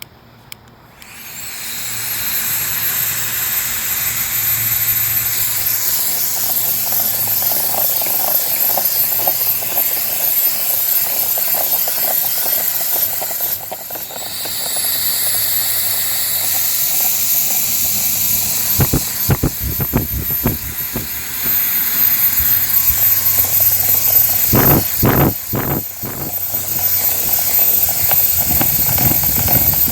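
Hairdryer switched on, its motor whine rising as it spins up, then blowing with a steady hiss. About halfway it dips briefly and spins up again; later the whine steps up in pitch, and a few dull thumps come in the second half.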